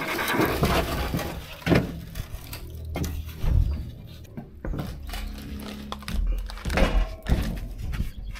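A heavy 350-pound aluminum gutter coil being tipped and rolled across a pickup bed onto a ramp: irregular thunks and knocks of the coil against the bed and ramp, with scuffing and rustling between them.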